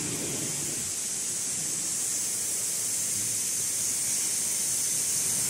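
Steady hiss, strongest in the upper range, growing slightly louder over the few seconds.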